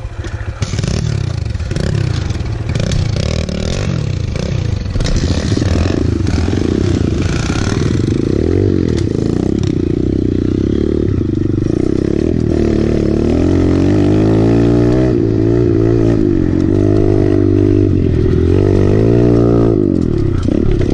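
Kawasaki KLX pit bike's four-stroke single-cylinder engine pulling away about half a second in, then revving up and falling back again and again as it is ridden hard around tight turns.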